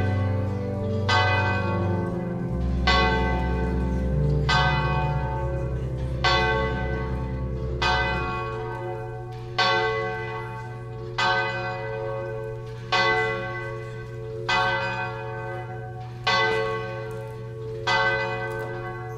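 Church bell tolling, a single bell struck about once every one and a half to two seconds, each stroke still ringing as the next one comes. Low held notes sound beneath the strokes for the first eight seconds or so.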